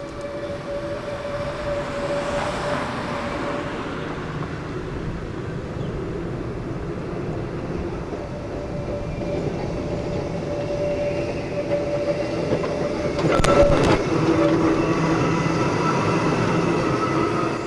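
Vintage RET tram 2101 giving a steady mechanical hum and rumble. About thirteen seconds in there is a brief clatter of sharp knocks.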